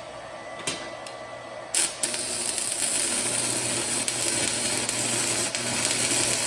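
Stick welding arc from a cheap stick welder. The rod is struck with two short crackles before the arc catches about two seconds in. It then burns with a steady crackling sizzle as a bead is laid, over a low electrical hum.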